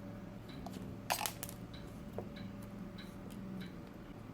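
Scattered small clicks and taps from a camera zoom lens being worked apart by hand, with a quick cluster of them about a second in, over a faint steady hum.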